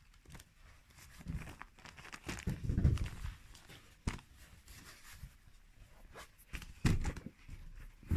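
Wrapping paper rustling and tearing as a present is unwrapped, with scattered light knocks and a few soft thumps.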